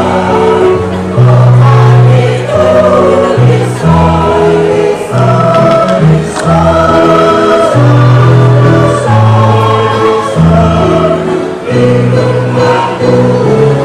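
A mixed choir singing a hymn in parts with keyboard accompaniment. Sustained chords change every second or two.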